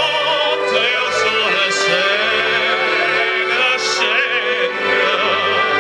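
Opera music: a singer with strong vibrato over sustained instrumental accompaniment.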